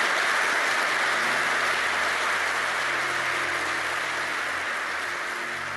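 Audience applauding: a dense, even patter of clapping that slowly dies away.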